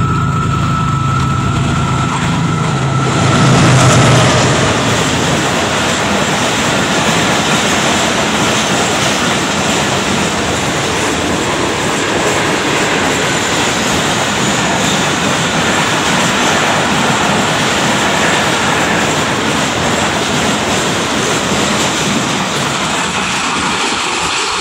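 Passenger express train running through a station at speed. The locomotive's engine drone builds and is loudest as it passes, about four seconds in. Then the coaches rush past with steady wheel clatter on the rails.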